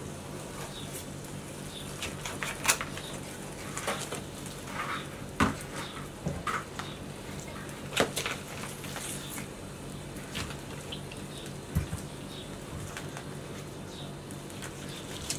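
Kitchen knife cutting and scraping cooked lamb-head meat off the bone on a wooden cutting board, with hands pulling the meat apart. Several sharp knocks of the blade and bone against the board stand out, the loudest about a third and halfway in.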